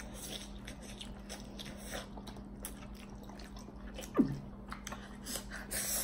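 Two people slurping and chewing forkfuls of instant ramen noodles, with small wet mouth smacks and fork clicks. About four seconds in comes a short falling vocal sound.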